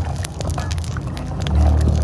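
Deep rumble of wind buffeting the microphone, swelling about one and a half seconds in and then cutting off abruptly, over the sharp crackle and pops of a small wood fire burning under a cooking pot.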